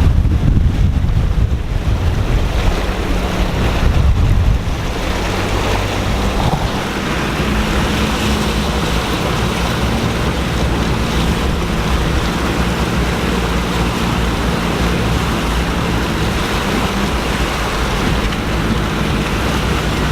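Jeep engine running steadily while the Jeep drives through floodwater, with a continuous rush of water against the vehicle. A heavier low rumble fills the first few seconds, then the engine note holds even under the water noise.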